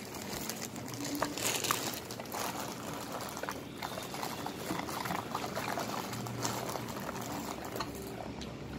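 Puppies licking and mouthing each other close to the microphone: a continuous run of soft, wet clicks and crackles.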